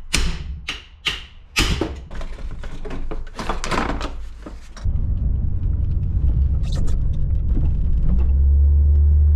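A quick run of sharp knocks as the crank pulley bolt is shocked tight. About five seconds in, this gives way to the Holden VL Commodore's RB30 straight-six running as a steady low rumble, which grows louder near the end.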